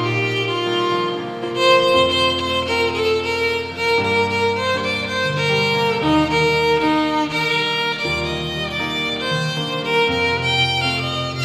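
Solo violin playing a bowed melody over an accompaniment of sustained low bass notes that change about every two seconds.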